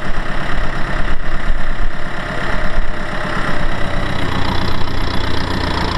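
Kubota M6040SU tractor's four-cylinder diesel engine running steadily.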